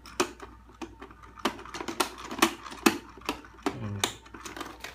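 Hard plastic toy parts clicking and knocking irregularly, a few sharp clicks a second, as a child works a toy tool set's push-down saw.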